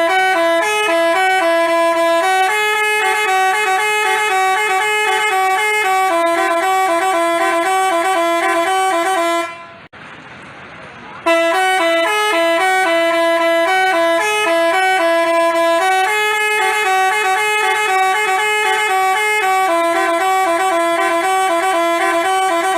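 Basuri telolet multi-tone bus horn playing a tune of quick, short notes. It plays for about nine seconds, breaks off for about two seconds, then plays the same tune again and stops at the end.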